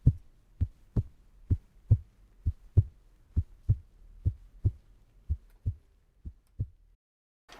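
Heartbeat sound effect: paired low thumps, lub-dub, about once a second. The beats grow fainter and stop shortly before the end.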